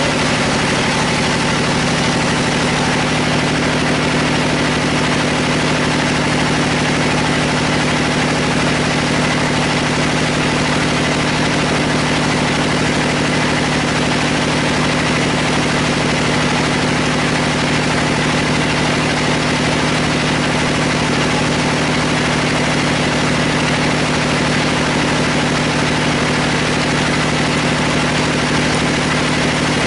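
A band sawmill running steadily as it saws through a large log: a constant machine hum with a faint high whine over it, unchanging throughout.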